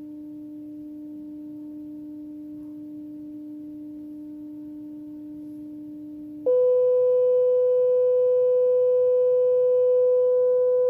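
A smartphone's speaker playing a steady 300 Hz sine tone from the phyphox tone-generator app; about two-thirds of the way through it switches to a much louder, higher 500 Hz tone.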